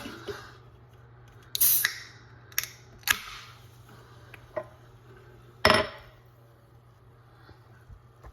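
A drink cup and its lid and straw being handled on a table: a few short clicks and knocks, with two louder scraping bursts, one about a second and a half in and one near six seconds.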